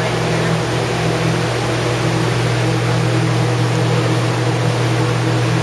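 Exhibit's electric blower fan running steadily: a loud, even rush of air over a low motor hum.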